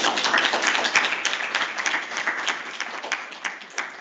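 Audience applauding, the clapping thinning out to a few scattered claps near the end.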